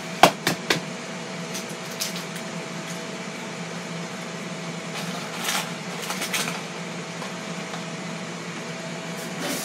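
Steady fan hum of a Ninja Foodi XL indoor grill running while it cooks, with a few sharp taps on kitchenware about a quarter to three-quarters of a second in and scattered lighter clicks later.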